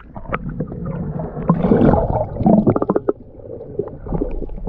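Muffled gurgling and sloshing of water heard with the camera under the surface, with scattered knocks and a quick run of sharp clicks about halfway through.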